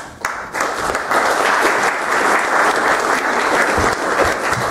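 Audience applauding, building up in the first second and dying away near the end.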